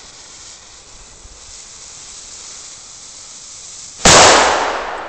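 A faint steady hiss, then a single loud bang from a flash-powder firecracker (a 'nitraat') about four seconds in, with a tail that dies away over a second or so.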